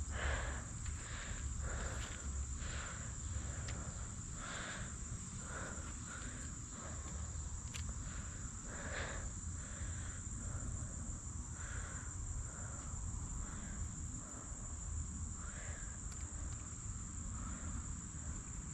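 Insects trilling steadily at a high pitch, crickets or similar, over a low rumble, with soft, irregular quieter sounds now and then.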